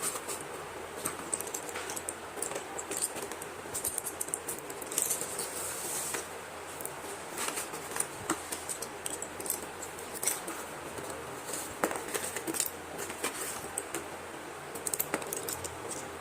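Packets of slate pencils being handled and unwrapped: irregular crinkling and light clicking, with many short sharp crackles scattered throughout.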